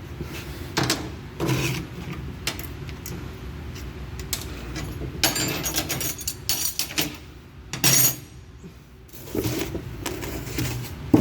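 Irregular metallic clinks, clanks and rattles of hand tools and metal parts being handled, a dozen or so separate knocks, some short scraping runs, with the loudest near the end.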